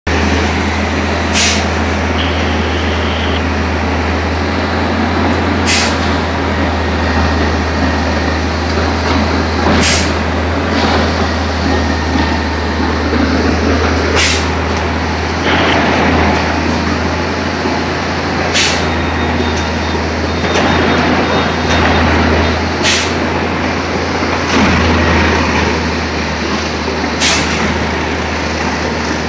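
Railway track tamping machine at work: its engine runs with a steady low drone, and a short burst of air hiss repeats evenly about every four seconds.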